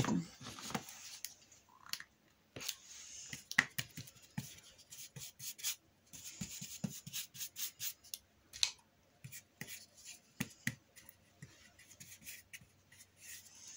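Paintbrush scrubbing acrylic paint across the painting in rubbing strokes about a second long, with many small clicks and taps in between.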